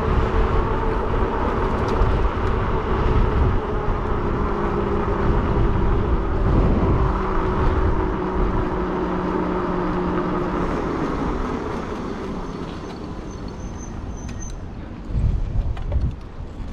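E-bike riding along on a Shinko 244 motorcycle-type rear tire: a steady motor whine over tire and road noise. The whine sags slightly and fades out about eleven seconds in, leaving quieter rolling noise. Wind buffets the microphone near the end.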